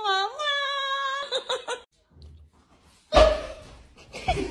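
A woman's high-pitched, drawn-out laugh for about two seconds. After a short pause, a sudden loud burst about three seconds in, then more laughter starting near the end.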